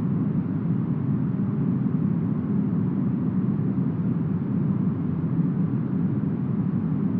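Smoothed brown noise modelled on deep forest wind: a steady, deep rumbling hiss with most of its weight low down and almost no treble. Even throughout, with no gusts or other sounds.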